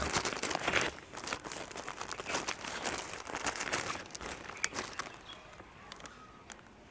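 Polythene bag crinkling and crackling as it is handled and slipped over a grafted seedling, an irregular run of crackles that fades out after about five seconds.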